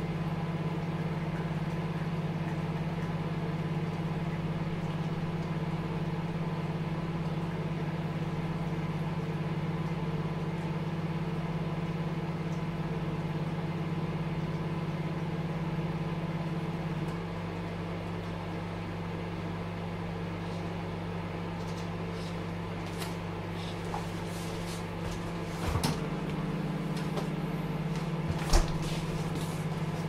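Microwave oven running with a steady low hum. About halfway through the hum drops slightly and changes, it shifts again near the end, and a few light clicks follow, the last one sharp.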